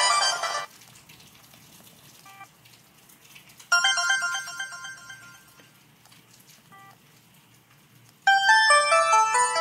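Samsung ringtones played back one after another through a ZTE Z222 phone's speaker. One melody stops within the first second, a short jingle sounds and fades out over about two seconds midway, and a new ringtone starts about a second before the end, with quiet gaps between them.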